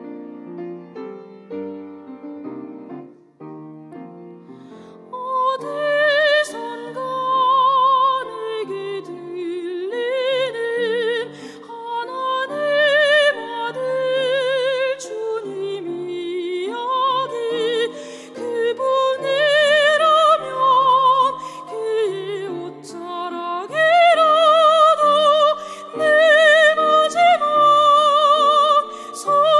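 Classical soprano voice singing long, sustained notes with wide vibrato over piano accompaniment. The piano plays alone at first, and the voice comes in about five seconds in.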